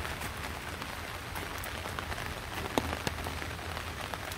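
Steady rain falling, with a few sharp drop taps standing out, two of them just under three seconds in.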